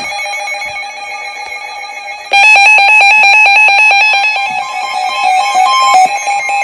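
Emergency Alert System alert tones cut in loudly about two seconds in, a rapid high-pitched warble, over background music.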